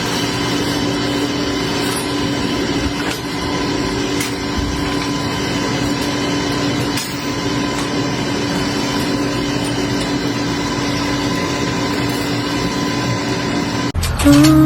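Steady hum of an electric rolling-gate operator motor running the door, with a rattling, noisy haze over it. It cuts off abruptly near the end and music begins.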